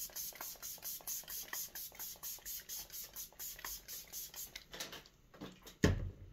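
Makeup setting spray from a pump-mist bottle spritzed rapidly, a quick run of short hisses at about four a second that stops about five seconds in. A single loud thump follows near the end.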